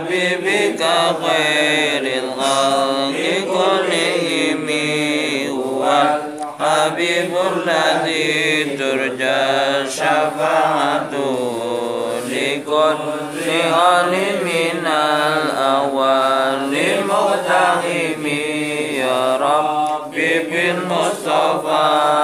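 A group of men's voices chanting together in a continuous melodic devotional recitation, the pitch rising and falling in long phrases.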